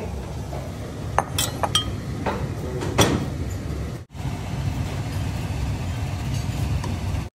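A few light clinks of dishes and utensils over a steady low hum. The sound breaks off briefly about four seconds in, then only the hum continues.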